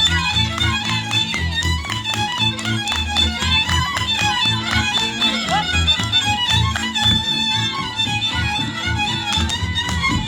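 Live folk band playing a British Isles-style instrumental tune: a fiddle carries a busy, quick-noted melody over a steady pulsing bass and rhythm accompaniment.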